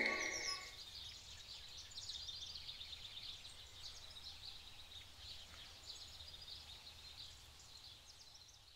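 The tail of the music fades out right at the start, leaving faint birdsong: many short, high chirps over a quiet background, which fade away near the end.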